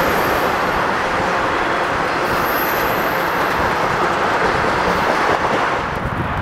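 Steady rolling rumble and rush of an intermodal freight train's flatcars carrying truck trailers as they pass, with a thin high wheel squeal for about a second around the middle. Near the end the sound drops away and changes.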